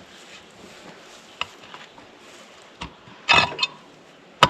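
Septic tank lid being worked loose and lifted off: a few light knocks, a louder scrape about three seconds in, and a sharp clank near the end that rings briefly.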